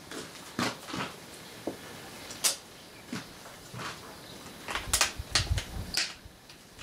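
Scattered knocks, clicks and light clatter of workshop gear being handled, with a cluster of dull thumps about five seconds in, as high-voltage test equipment is set up.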